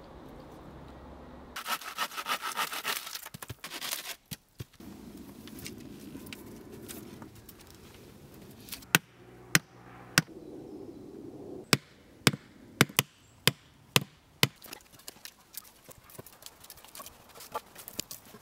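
Hand tools working wood: a short burst of rapid scraping strokes, then a run of sharp wooden knocks and chops, about a dozen strikes spaced under a second apart, with lighter knocks near the end.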